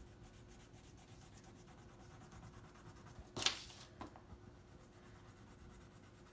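Wax crayon rubbing back and forth on a sheet of paper laid on a wooden table, in quick faint strokes. A louder, brief scrape comes about three and a half seconds in as the paper is turned on the table, with a smaller one just after.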